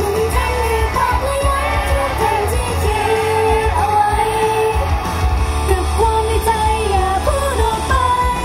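Upbeat pop song with female group vocals over a heavy, booming bass line, played loud through a stage PA.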